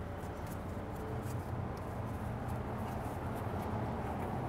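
Quiet room tone with a steady low hum, broken by a few faint light ticks and rubs of a gloved hand handling the grill's metal parts.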